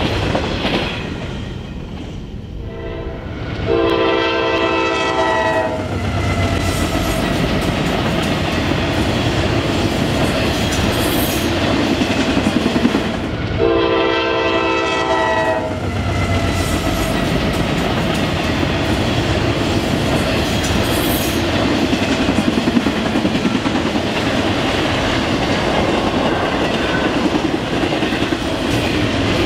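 Freight train passing with the steady noise of wheels on rail and car clatter. A diesel locomotive's horn sounds twice, about 4 and 14 seconds in, each blast a chord of about two seconds.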